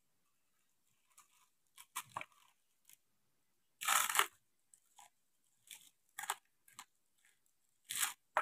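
Crisp fried banana-leaf chips (keripik daun pisang, battered leaf fried crisp) being bitten and chewed. The crunches come in short bursts every couple of seconds, the loudest about four seconds in and another near the end.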